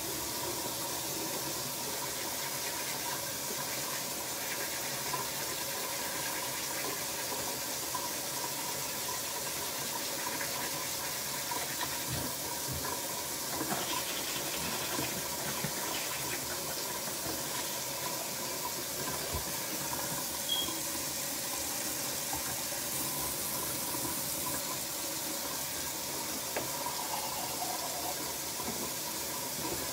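Water running steadily from a bathroom tap, an even hiss with no break.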